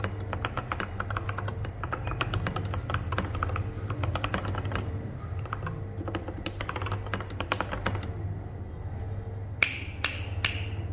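Mechanical keyboard with lubed and filmed Durock Koala tactile switches and OSA-profile keycaps being typed on in quick runs of keystrokes. The typing thins out after about eight seconds, and three sharp, louder clicks come close together near the end, over a steady low hum.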